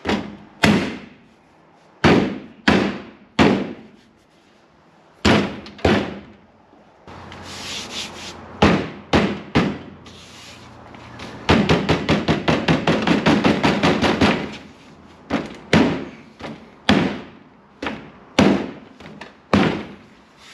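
Hands slapping and pressing a new door panel (door card) onto a 1970 VW Beetle's door, a string of sharp thumps as the stubborn panel clips are pushed home. In the middle comes a fast run of quick knocks lasting about three seconds.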